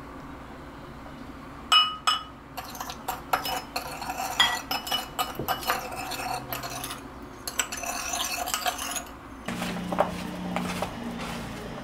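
A metal measuring spoon clinks sharply twice against a glass mixing bowl, then stirs sauce in the bowl with rapid clinks and scrapes of metal on glass for several seconds. Near the end the clinking stops, giving way to softer handling sounds as sliced lotus root and sweet potato are tossed in flour by hand.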